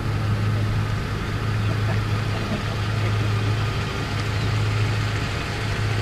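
A vehicle engine running steadily, a constant low hum with no change in speed.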